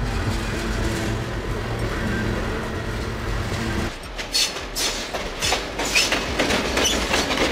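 A freight train of covered hopper cars rolls past with a steady rumble. About four seconds in, this gives way to a diesel-hauled passenger train whose wheels clack rapidly and irregularly over the rail joints.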